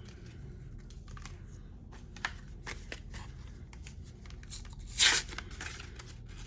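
Trading-card packaging being torn open and crinkled, with scattered light clicks and rustles of handling and one loud rip about five seconds in.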